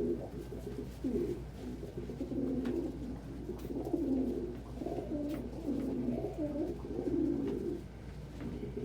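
Domestic pigeons cooing in a loft, one low coo after another with hardly a break.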